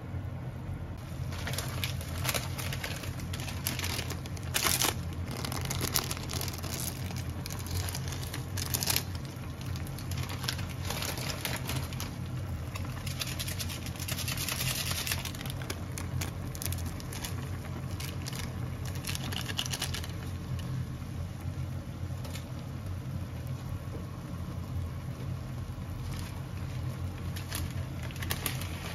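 Water boiling and bubbling around instant ramen noodles in an aluminium mess tin over a steady low hum, while plastic seasoning sachets are crinkled, torn open and their flakes and soup powder shaken in, the crinkling loudest about 5 to 9 seconds in and again around 15 seconds.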